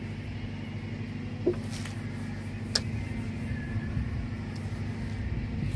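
A duster wiping a whiteboard, faint rubbing over a steady low hum, with one sharp click about three seconds in.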